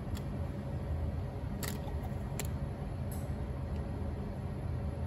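Steady low hum of a laboratory workstation's fan, with a few faint clicks.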